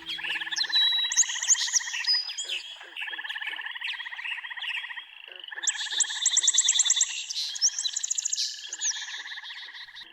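Frogs calling in repeated pulsed trills, with birds chirping over them; a fast, high bird trill is loudest from about six to eight seconds in.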